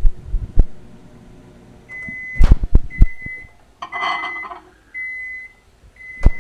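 Microwave oven finishing its cycle on a mug of water: the running hum fades about a second in, then its high end-of-cycle beep sounds five times, about once a second. Loud clunks and a short clatter come between the beeps as the door is opened and the glass mug is lifted out.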